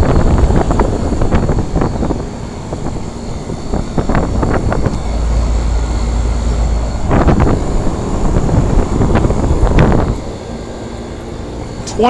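1984 Carrier Round One heat pump outdoor unit running in cooling mode: the steady rush of the condenser fan over the compressor's hum. Uneven low rumbling surges run through most of it and ease off near the end.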